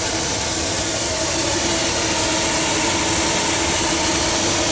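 Steam hissing steadily from a fired fire-tube boiler under pressure, a loud even rush with a faint low hum underneath.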